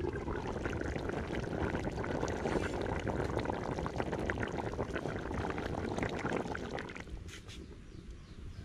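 Hilsa and eggplant curry bubbling hard in an uncovered aluminium pot: a dense crackle of popping bubbles that drops away about seven seconds in.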